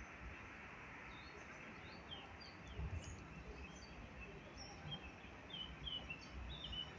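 Small birds chirping in short, high calls that come more often in the second half, over a steady faint outdoor hiss with a few low rumbles.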